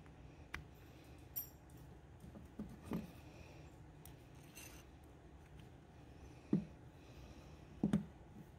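Light clicks and taps of a knife's metal fittings being handled and fitted together by hand, with a few sharper knocks, the loudest two near the end as the pommel nut goes on.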